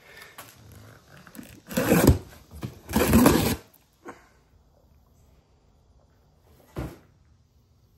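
Cardboard boxes and plastic packaging rustling as a supercharger kit is unboxed. There are two bursts about two and three seconds in, and a short one near the end.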